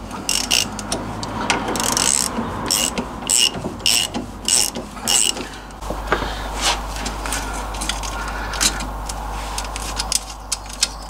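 Hand socket ratchet clicking in repeated strokes, about one burst every half second or so, as the bolts on an MGB's rear axle spring plate are loosened; in the second half the clicks become sparser and irregular.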